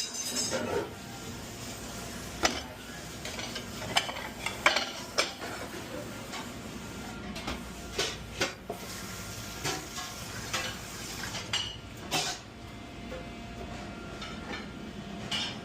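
Dishes and cutlery clinking: scattered sharp knocks of plates and utensils being handled, over a steady hiss of kitchen noise.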